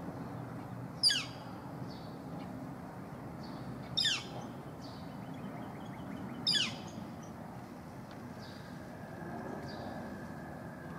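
Yellow-shafted northern flicker giving three loud, short calls that drop sharply in pitch, about three seconds apart, with faint high chirps of other birds in between.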